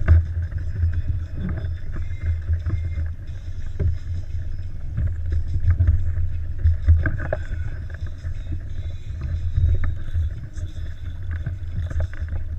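Water slapping against a plastic kayak hull, with a loud, uneven low rumble and scattered small knocks.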